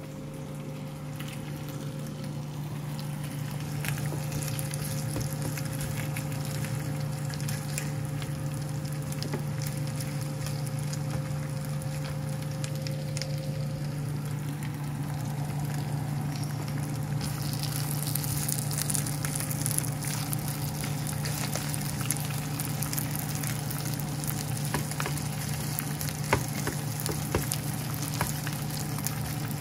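Chicken pieces frying in oil in a pan, a steady sizzle with fine crackling pops. It grows louder over the first few seconds and turns brighter and hissier a little past halfway, over a steady low hum.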